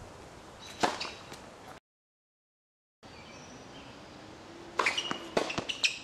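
A tennis serve: a single sharp crack of racket strings hitting the ball about a second in. After the sound drops out for about a second, a quick run of sharp knocks near the end, some with short high squeaks.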